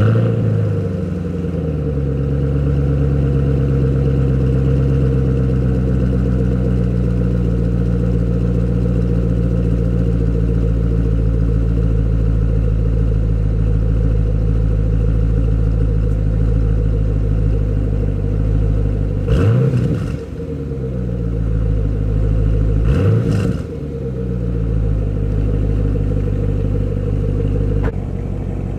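2014 Chevrolet Camaro SS's 6.2-litre V8 just after starting, its revs flaring high then settling to a steady idle. About twenty seconds in it is briefly revved twice, a few seconds apart.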